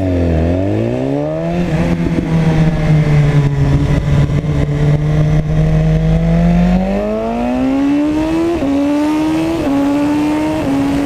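BMW S1000RR's inline-four engine under way: the revs dip and climb in the first couple of seconds, then hold steady for about five seconds. They climb again near the end, broken by three quick upshifts, each a short sudden drop in pitch.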